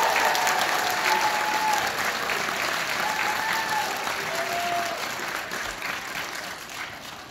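Audience applauding, with a few voices calling out over it, gradually dying away.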